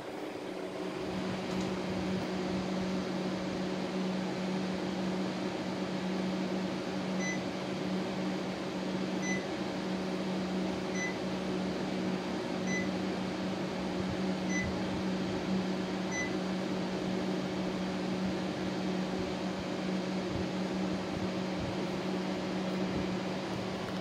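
Panasonic CS-YN9TKJ split air conditioner indoor unit running with a steady hum and rushing air. About seven seconds in, it gives a short high beep six times, roughly every two seconds, in reply to the remote control's button presses.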